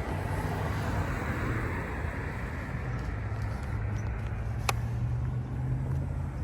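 A car running with a steady low engine hum and a wash of noise, and one sharp click a little over four and a half seconds in.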